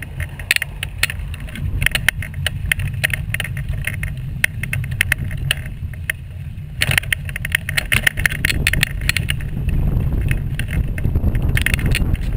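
Wheels rolling over a rough path surface: a steady low rumble with frequent sharp clicks and rattles, which thin out briefly about six seconds in and then pick up again.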